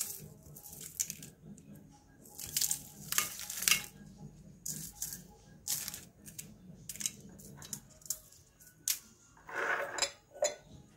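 Dried red chillies rustling and crackling as they are handled and dropped into a steel bowl of whole spices, with scattered light clicks and clinks of the bowls.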